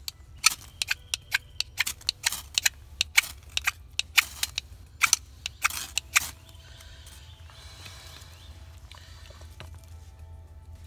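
A ferrocerium fire rod being scraped hard again and again to throw sparks onto lichen tinder in a small wood-burning camp stove: some twenty quick, irregular rasping strokes over about six seconds. Then the strokes stop.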